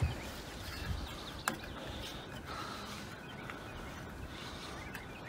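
Quiet outdoor ambience with a steady low background rumble and a few faint bird chirps. There is a single sharp click about a second and a half in.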